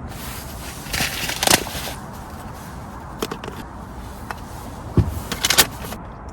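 Plastic meal-kit packaging rustling and crinkling in several short bursts as it is handled, with a soft knock about five seconds in, over a steady background hiss.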